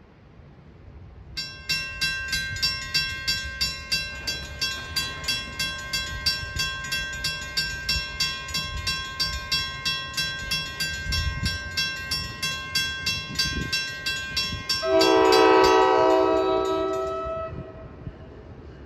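Railroad grade-crossing warning bell starts ringing about a second in, struck about three times a second. Near the end a train horn sounds one long blast of several tones at once, the loudest sound, and the bell stops soon after.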